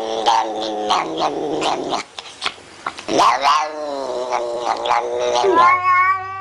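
Cat yowling (caterwauling): a long wavering howl, a short break about two seconds in, then another yowl that rises and falls, and a long held one near the end.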